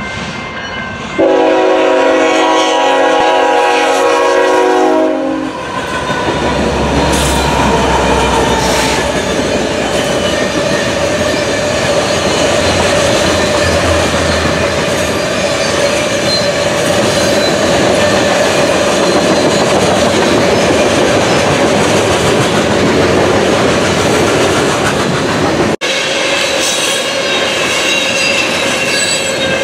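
Freight train locomotive's air horn sounding a long multi-note chord from about a second in, held for about four seconds as the train approaches. The freight cars then roll past with steady wheel rumble and rail-joint clatter and a thin, steady wheel squeal.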